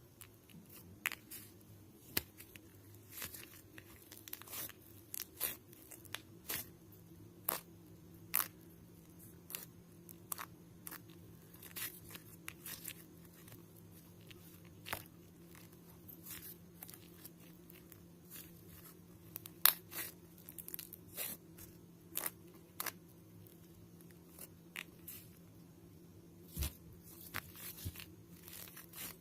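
Paper being cut and handled at close range: scattered short snips, tears and crackles, irregular and a few each second, over a faint steady hum.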